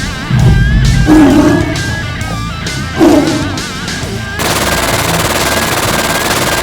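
Action soundtrack music layered with dubbed machine-gun fire sound effects. There are two loud hits, about a second in and at three seconds, and from about four seconds in a continuous rapid burst of gunfire.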